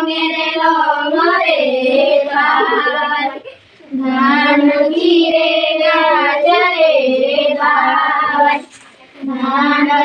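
A group of girls singing a Karam festival folk song together, in long phrases with short breaks about three and a half and nine seconds in.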